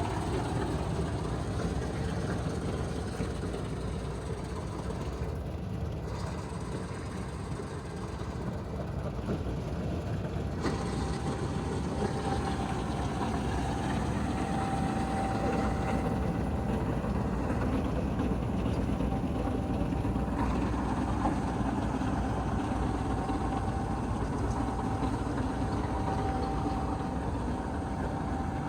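Combine harvester's diesel engine and machinery running steadily with a dense low rumble; a thin steady whine joins in about ten seconds in.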